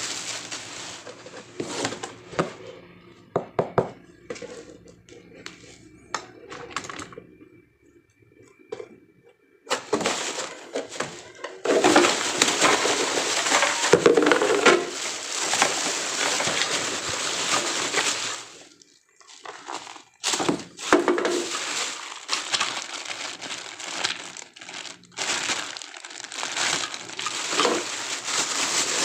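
Plastic and packaging material rustling and crinkling in long stretches, with scattered knocks and clicks, as the parts of a boxed stand fan are unpacked and handled.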